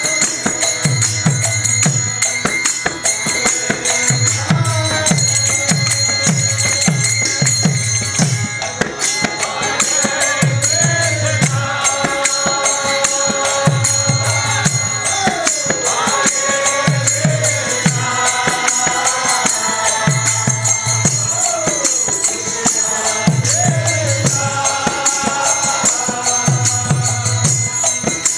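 Kirtan music: a lead voice and a group sing a devotional chant over hand drum strokes in a repeating pattern, with small hand cymbals (kartals) jingling throughout.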